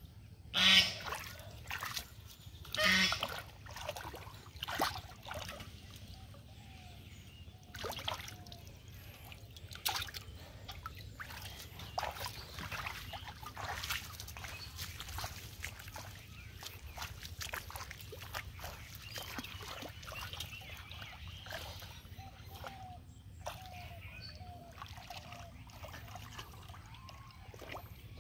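Hands splashing and sloshing in shallow muddy water while groping for fish, in short scattered splashes. Two loud animal calls stand out, about one and three seconds in.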